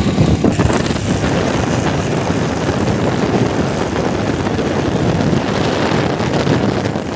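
Steady wind rush over the microphone of a moving motorcycle, with the bike's engine and road noise underneath.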